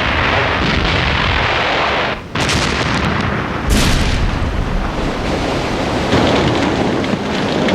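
Gunfire and explosions: heavy blasts about two and a third and about three and three-quarter seconds in, each followed by a long rumble, over a continuous din from a blast just before. Fits a U-boat's deck gun shelling a merchant ship.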